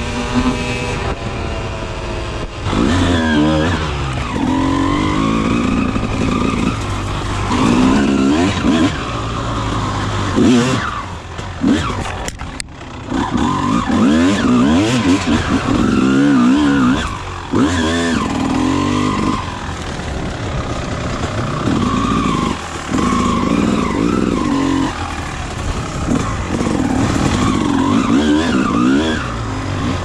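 1999 Honda CR250R two-stroke dirt bike engine being ridden hard, revving up and dropping back again and again as the throttle is worked and gears are changed. The sound breaks off for a moment about twelve seconds in.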